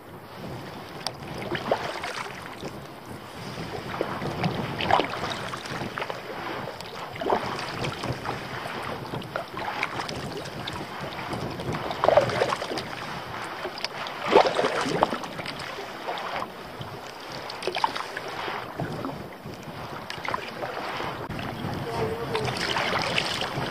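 Kayak paddle strokes splashing into the water in a steady rhythm, about one every two and a half seconds, over wind noise on the microphone.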